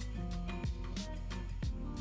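Background music with a steady beat and held instrumental notes.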